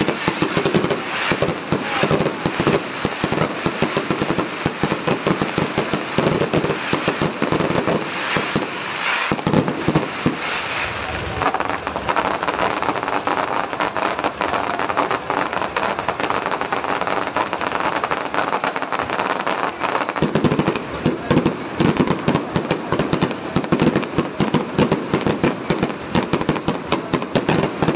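Aerial fireworks going off in a rapid, continuous barrage, many bangs a second, with a stretch of dense crackling in the middle and heavier low booms again in the last third.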